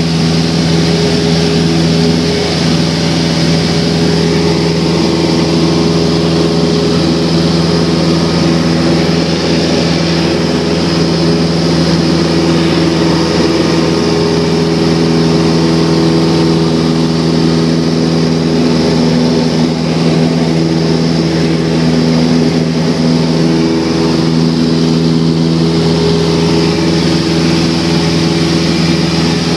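Light aircraft's engine and propeller heard from inside the cabin in flight: a loud, steady drone with a strong low hum.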